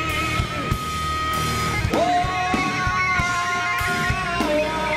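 Heavy metal band playing live: a lead electric guitar holds long sustained notes with vibrato over drums and bass, stepping down in pitch near the end.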